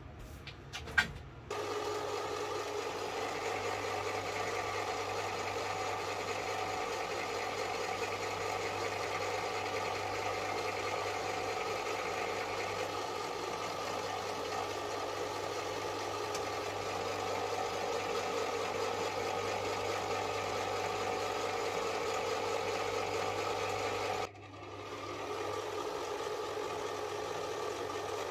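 Small bench metal lathe starting up after a few clicks and a sharp knock, then running steadily with a hum and whine. Near the end it cuts out suddenly and comes back up to speed within about a second.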